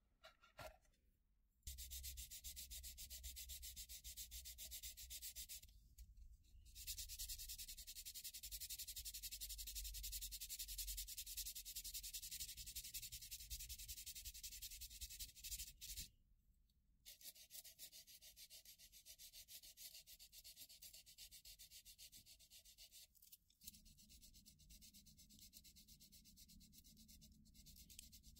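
Faint sanding of a plastic scale-model helicopter hull, abrasive rubbing over styrene to smooth away molded-on detail. It runs as a steady hiss, with two short pauses about six and sixteen seconds in.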